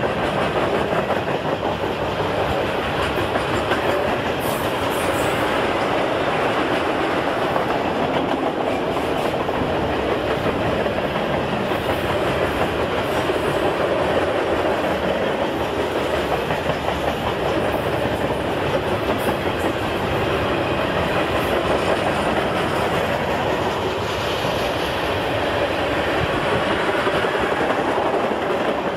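Mixed freight train cars rolling past at steady speed: continuous wheel-on-rail noise with clickety-clack.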